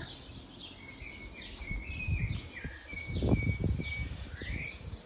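Small birds chirping and singing, in short warbled notes and quick falling calls. A low rumble on the microphone a little past the middle is the loudest sound.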